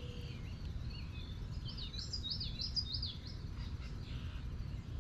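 A songbird sings a short phrase of about five quick, high, rising-and-falling notes, starting a little over a second in, over a low steady rumble.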